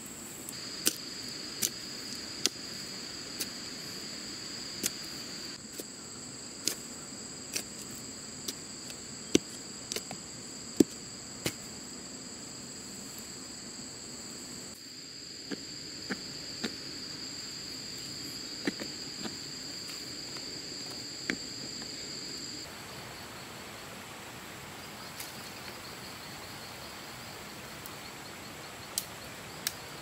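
A steady, high-pitched insect chorus, with irregular sharp knocks and scrapes from a blade and hands digging into the soil, most frequent in the first dozen seconds.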